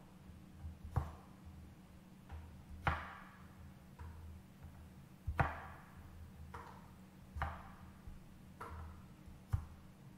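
A cleaver chopping through asparagus stalks onto a wooden cutting board, trimming off the tough ends. The sharp knocks come every one to two seconds, each with a short ring.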